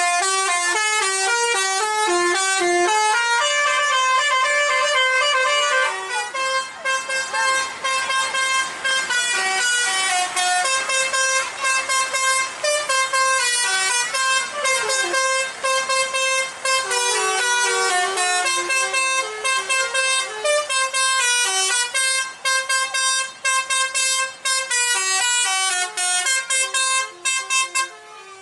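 Telolet basuri melodic bus horns, banks of air-horn trumpets playing fast stepping tunes. After about six seconds the single tune gives way to choppy, overlapping notes, as several buses answer one another almost without a break.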